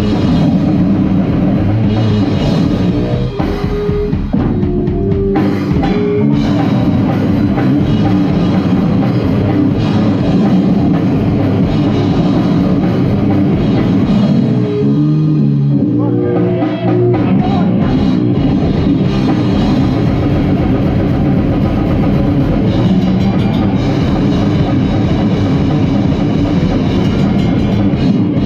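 Goregrind band playing live: drum kit and distorted guitar in a loud, dense wall of sound. It thins briefly twice, a few seconds in and about halfway, where single pitched notes stand out before the full band comes back.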